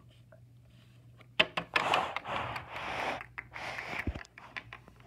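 Handling noise from small plastic toys being picked up and moved: a sharp click, then rustling and scraping, ending with a low thump.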